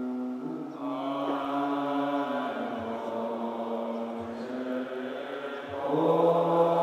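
Buddhist monks chanting together in unison, holding long drawn-out notes; the voices swell louder about six seconds in.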